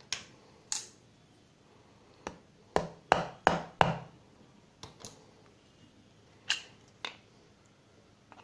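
Scattered clicks and knocks of a plastic mixer-grinder jar base and its spindle parts being handled and tapped, with a run of four sharper knocks about three seconds in.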